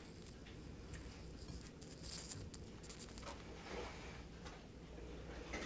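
Quiet kitchen sound of a saucepan of potatoes heating in water on an electric stove, with a few light clinks and splashes about two to three seconds in as the last potato pieces go into the pot.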